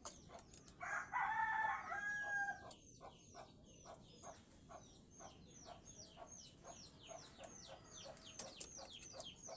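A rooster crows once for about two seconds, starting about a second in. Then a small bird chirps over and over, short high falling notes about two a second, with faint clicks.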